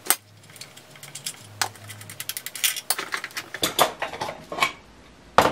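Scattered light clicks and knocks of hand tools and screws on a chainsaw's plastic clutch cover as it is unscrewed and lifted off.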